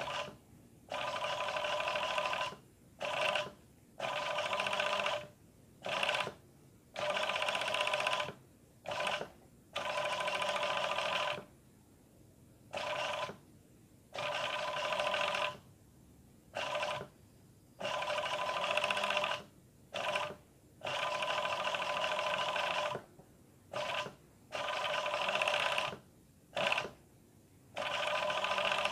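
Industrial overlock sewing machine stitching picot edging, run in short bursts of one to two and a half seconds that stop and start more than a dozen times as the fabric is guided. Each run is a steady high whine.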